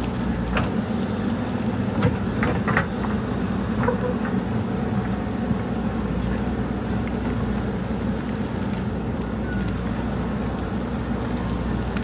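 JCB backhoe loader's diesel engine running steadily under working load. In the first few seconds there are several sharp knocks and clatters, most likely soil and stones falling as the bucket tips.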